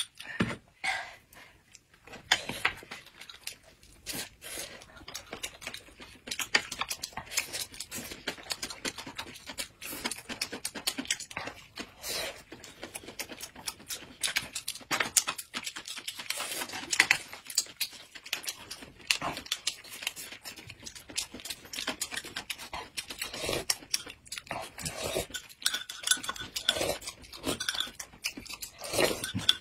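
Table eating sounds: metal spoons clinking against glass cups and chopsticks tapping on plates, mixed with sipping and slurping of thick corn soup.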